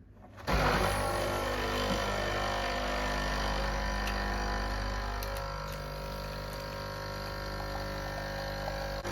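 Nescafé Dolce Gusto capsule machine's pump switching on about half a second in and running with a steady hum as it dispenses a drink through the pod into a mug.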